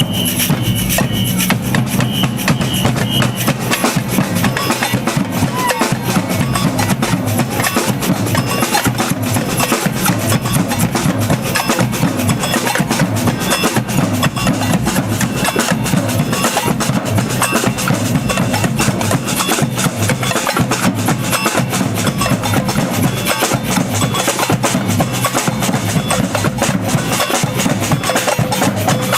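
Samba band drumming: bass drums, snares and wood-block-type percussion playing a dense, fast, steady rhythm.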